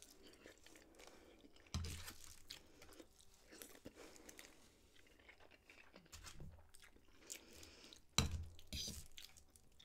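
Close-miked mouth sounds of eating instant noodles: slurping and chewing, with short wet clicks. It gets louder about two seconds in and again near the end.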